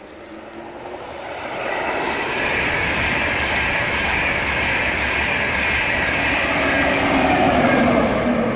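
LNER intercity express train running through the station at speed: a rising rush of wheel and air noise with a low rumble that swells within the first two seconds, stays loud as the coaches pass, and peaks near the end.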